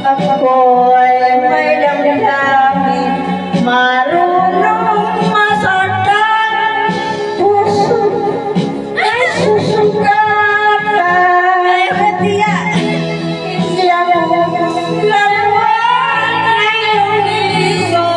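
A woman singing karaoke through a microphone over a backing track, both coming out of a portable rechargeable speaker.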